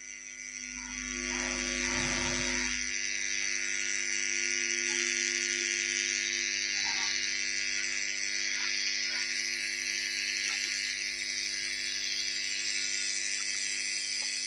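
Outdoor ambience: a steady high-pitched buzzing drone, with a brief low rumble about a second in and a few faint chirps.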